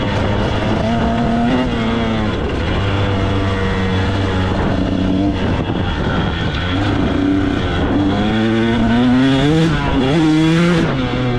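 KTM dirt bike engine running under the rider, revs rising and falling through gear changes and climbing hardest near the end as the bike accelerates along a dirt trail.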